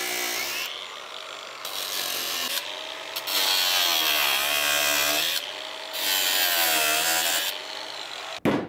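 Angle grinder cutting into the sheet-steel floor and firewall of a Chevy S10 truck, clearancing room for a Turbo 400 transmission. There are two long passes; in each the grinder's whine drops in pitch as it bites under load and rises again as it frees up. Near the end come two sharp metal knocks.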